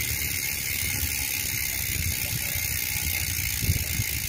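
Strummer HM-350 Boost rear freehub coasting, its six pawls ticking over the ratchet ring so fast that they blend into a steady, wasp-like buzz. A few louder knocks come near the end.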